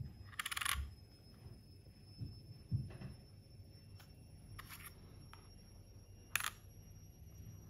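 A silver quarter clicking and scraping on the steel weighing platform of a digital pocket scale as it is set down, with a couple of soft thumps a couple of seconds in. About five seconds in come more quick clicks as it is lifted off, then one sharp click as it is laid on the scale's lid.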